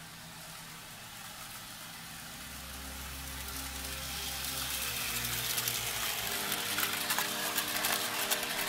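Hornby Dublo model train running on its metal track, its rattle and clicking wheels growing louder as it approaches and passes close by, over quiet orchestral music.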